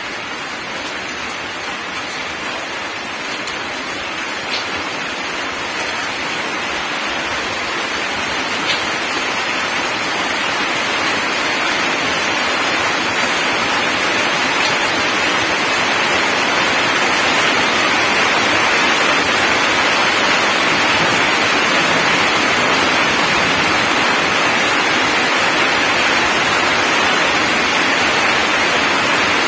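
Heavy rain falling on gravel and a flooded puddle: a steady, even hiss of drops that grows louder over the first twenty seconds or so, then holds.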